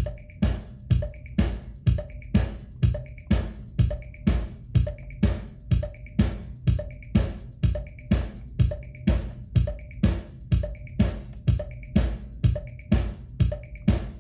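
Korg Drumlogue hybrid analog and sample drum machine playing a preset pattern in sequence mode: a steady beat of sharp hits, about two to three a second, over deep kick-drum thumps.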